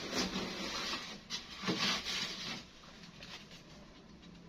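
Handling noises from a combination microwave-oven's removable parts and interior: a few soft rubbing and scraping sounds in the first two seconds, then quieter.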